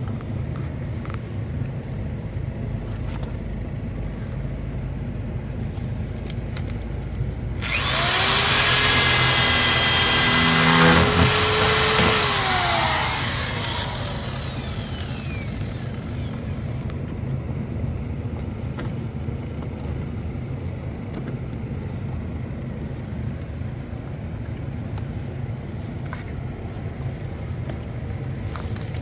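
Power drill spinning up and drilling for about six seconds, starting a third of the way in; its pitch rises as it starts and falls as it winds down. A steady low rumble runs underneath throughout.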